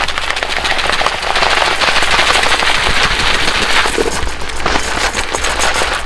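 Uncooked white rice pouring into a stainless steel pot: a dense rattling hiss of grains hitting the metal and the growing pile, easing briefly about four seconds in.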